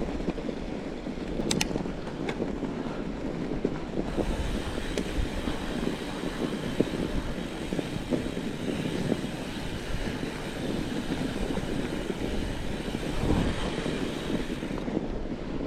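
Steady rushing noise of a fat bike being ridden over a snowy trail: wind on the microphone and the tyres rolling over snow, with scattered small knocks and clicks.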